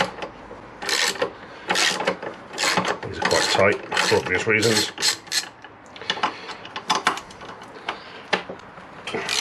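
Hand socket ratchet on an extension, undoing a bolt. Its pawl clicks in short bursts with each back-swing, about once a second, and the bursts grow fainter over the second half.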